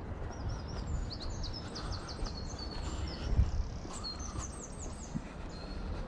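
Small songbirds singing: quick runs of high chirps about a second in and again around four seconds, over a low steady outdoor rumble, with one thump a little past three seconds.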